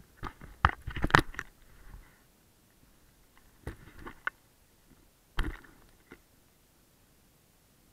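Handling noise from a pole-mounted camera: a quick run of knocks and clicks in the first second and a half, a few more at about four seconds, and one sharp knock a little past five seconds.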